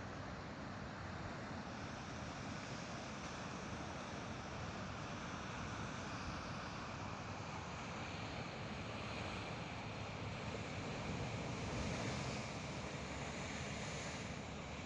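Sea waves washing ashore: a steady rushing noise that swells briefly near the end.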